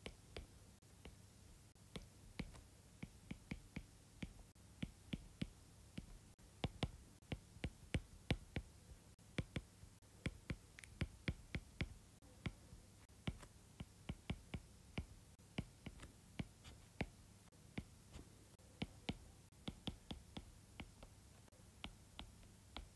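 Faint, irregular clicks and taps of a stylus on a drawing tablet as equations are handwritten, a few each second, over a low steady hum.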